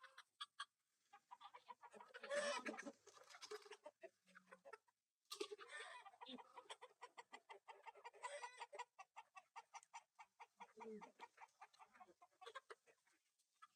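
Chickens clucking in quick, repeated calls, with louder flurries of squawking about two, five and eight seconds in.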